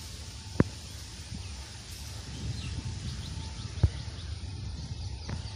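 Outdoor ambience: a steady low rumble with scattered bird chirps, broken by two sharp clicks about three seconds apart.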